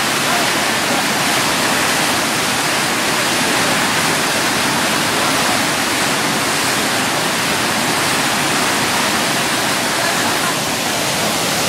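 Whitewater of a standing river wave rushing and churning, a steady loud roar of fast-flowing water.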